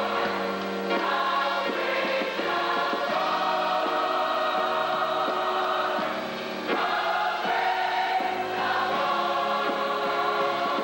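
Large mass choir singing a gospel hymn medley in held chords, backed by trombones and band, with a brief lull about six seconds in before the next phrase.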